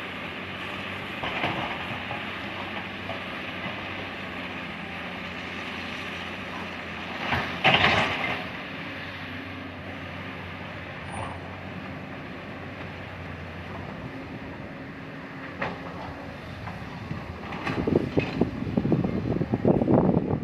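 Heavy earthmoving machinery with its engine running steadily, with a loud scraping crash about eight seconds in and a few lighter knocks. Rough, irregular rumbling and thumping fills the last couple of seconds.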